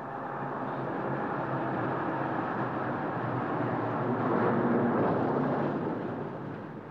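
Street traffic: a car engine and tyre noise swelling as a car passes close about four to five seconds in, then fading away.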